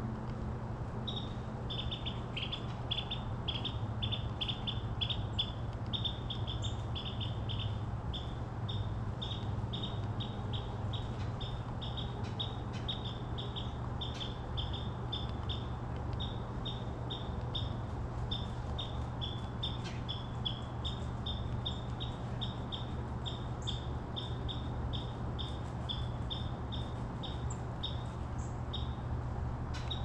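A long, steady run of short, high chirps, about four a second, over a low steady hum.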